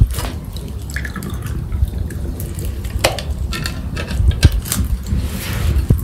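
Open wood fire crackling and popping under a wire grill, with scattered sharp snaps over a steady low rumble and a rising hiss near the end.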